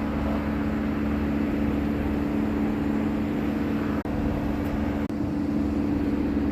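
An engine running steadily at idle, an even drone with no revving.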